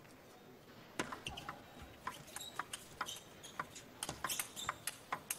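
Table tennis ball clicking off the bats and the table in a rally, from the serve about a second in. The sharp clicks come quicker toward the end.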